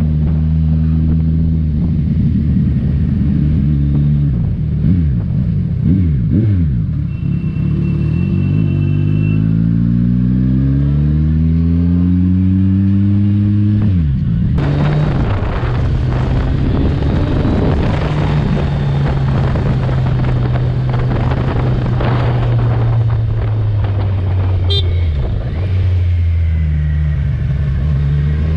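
Kawasaki Ninja 1000's inline-four engine running on the road. Its pitch climbs steadily for several seconds as it accelerates, then it settles into a steady cruise under rushing wind and road noise. A vehicle horn toots briefly about a quarter of the way in.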